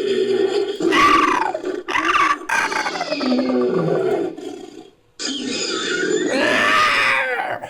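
Made-up creature calls built from layered animal recordings: a run of screeching roars, each falling in pitch, then after a short pause about five seconds in, one long screeching roar.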